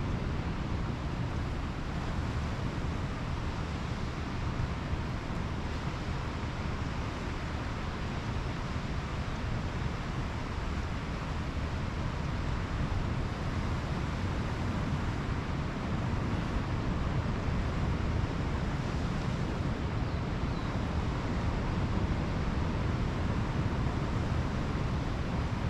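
Steady rush of ocean surf and wind at the shore, with wind rumbling on the microphone.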